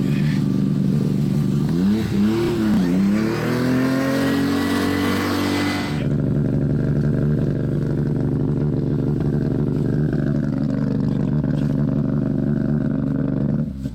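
Rally car engine revving hard and held at high revs while the car, stuck in a snowbank, spins its wheels in the snow. The pitch dips and climbs about two seconds in, and the sound changes abruptly about six seconds in before holding steady again.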